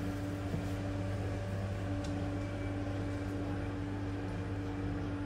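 A steady mechanical hum with a few held low tones, unchanging throughout, with a faint click about half a second in.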